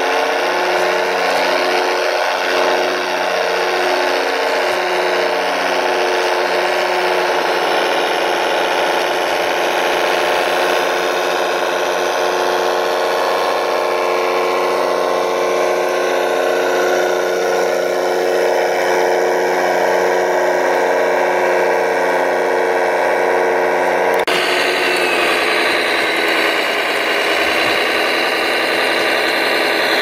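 Radio-controlled model trucks driving in mud: a steady mechanical whine from their electric drive motors and gearboxes. The sound changes abruptly a little over 24 seconds in.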